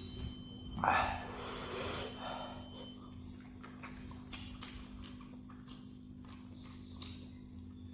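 Close-miked mukbang eating sounds: mouth clicks and smacks scattered throughout, with a louder breathy rush about a second in, over a steady low hum.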